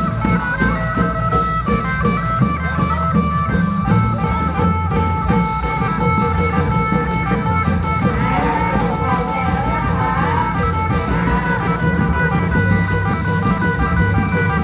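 Klong yao long-drum band playing Isan procession music: an even drum beat of about three to four strokes a second under a held, plucked-sounding melody, with a wavering melody line coming in about eight seconds in.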